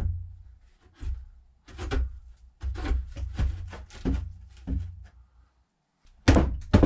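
Wooden bookshelf boards being handled, knocking and clunking against each other: a series of sharp knocks, several close together in the middle and louder ones near the end.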